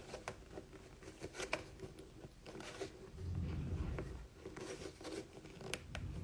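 Light clicks and rubbing from a small plastic Sonic figure being handled and posed, with a brief low rumble about three seconds in.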